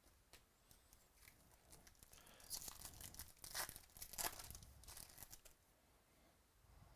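Faint crinkling and tearing of a trading-card pack wrapper being opened, the rustling loudest for a few seconds in the middle.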